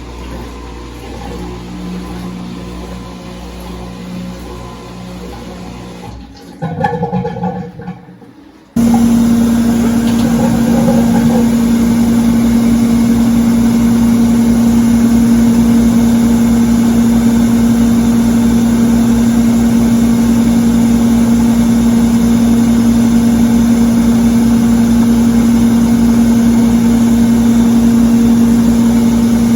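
GE UltraFresh front-load washing machine in its high-speed spin cycle. The drum spins with a moderate hum at first, then about nine seconds in the sound jumps abruptly to a much louder, steady hum that holds at full spin speed.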